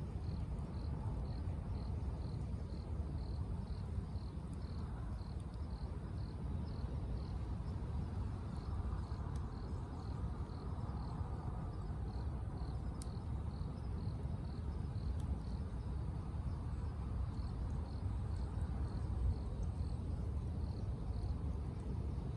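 An insect chirping in an even rhythm, about two short high chirps a second, over a steady low rumble.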